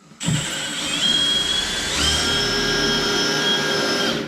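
Power drill running under load as it drills out a hole for an anchor screw. The motor whine starts a moment in and steps up to a higher pitch about halfway through.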